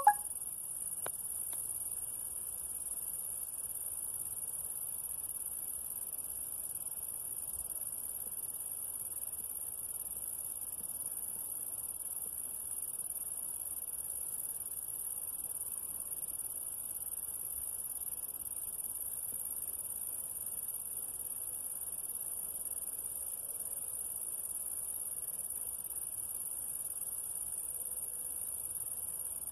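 Steady high-pitched hiss that holds unchanged throughout, with a short click right at the start.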